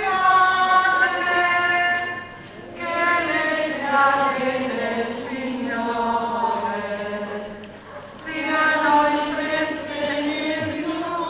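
A group of voices singing a slow religious hymn together in long held phrases, with two short breaks for breath.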